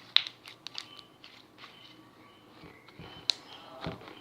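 Glossy slime being squeezed and worked by hand, giving irregular sharp clicks and pops, loudest just after the start and about three seconds in.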